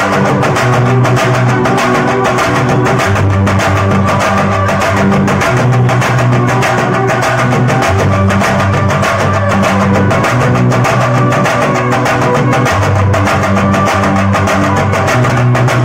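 Chenda drum ensemble playing a dense, rapid rhythm under a violin melody, with an electronic keyboard holding low bass notes that change every second or two: a chenda–violin fusion performance.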